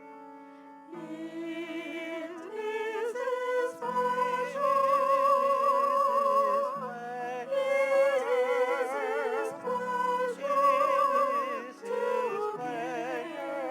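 A singer with a strong vibrato, accompanied by sustained piano or keyboard chords. The voice comes in about a second in, over chords that were already sounding.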